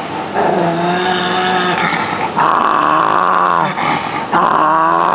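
Shih Tzu dog held on a lap giving three long, drawn-out growls in a row, a threatening, possessive warning aimed at another dog.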